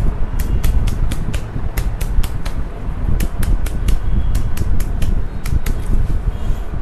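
A rapid, irregular series of sharp clicks or taps, about three a second, which pause briefly midway and die away near the end, over a steady low rumble.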